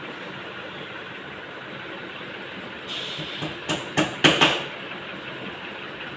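Steady background hum with a quick cluster of about four sharp knocks, a little past the middle.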